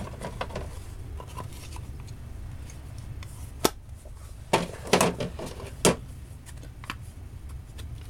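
Micrometers and their cases knocking and clattering as they are handled and set in a tool drawer. There is a sharp knock about halfway in, a quick cluster of knocks about a second later and one more shortly after, over a steady low hum.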